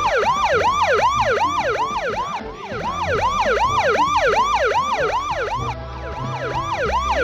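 Police siren in a fast yelp: a wail sweeping up and down about three to four times a second without a break.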